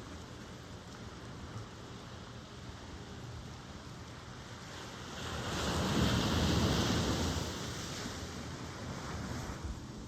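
Ocean surf washing steadily, with one wave building about halfway through, breaking loudest a second or so later, then easing back down.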